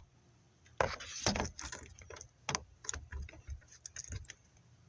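Irregular clicking and clinking of hand tools and metal parts being handled, a string of sharp clicks starting about a second in and dying away near the end.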